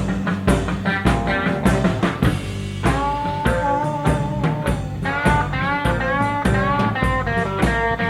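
Blues-rock band playing an instrumental break, with an electric lead guitar playing held notes that bend in pitch over bass and a drum kit keeping a steady beat.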